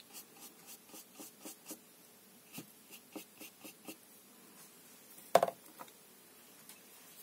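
Light, quick taps of a watercolour brush, about three or four a second, stopping after about four seconds; a single sharper knock follows a little after five seconds.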